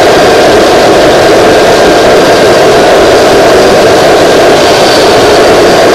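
Home-built twin-turbocharger gas turbine running on propane: a loud, steady rush of combustion and exhaust with a faint high whine from the spinning turbo wheels over it.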